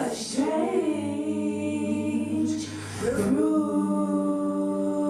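Women's voices singing a cappella in close harmony, holding one long note and then, about three seconds in, a second long note.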